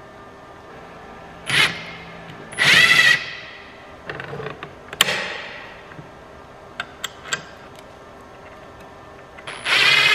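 Ridgid cordless drill/driver running in short bursts as it spins bolts into the seat slider brackets: three runs, the last near the end. Between the runs there are a few sharp metal clicks from the bolts and hardware.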